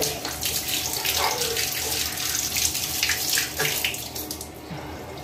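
Water running from a tap during a dog's bath, a steady splashing rush that eases off after about three and a half seconds.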